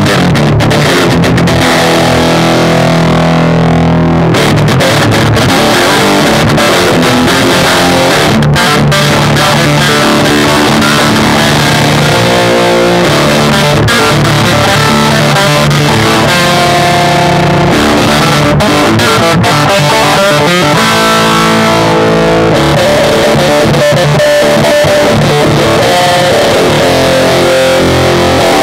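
Electric guitar fitted with Dialtone pickups, in drop tuning, played through an amp in heavy, metal-style riffs.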